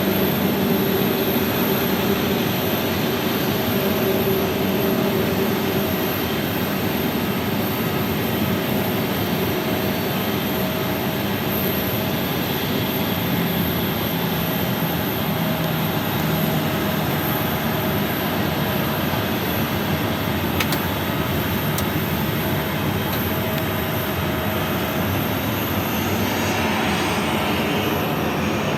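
Jet airliner engines running at low taxi power as aircraft move toward their parking stands: a steady, even rumble with a thin high whine over it.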